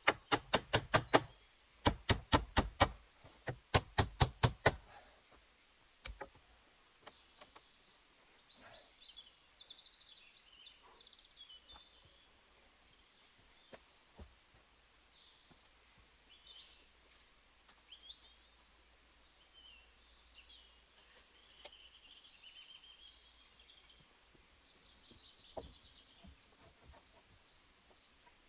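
Quick bursts of sharp knocks, several a second, over the first five seconds, typical of a tool striking wood in shelter building. Then small birds chirp here and there over quiet outdoor ambience.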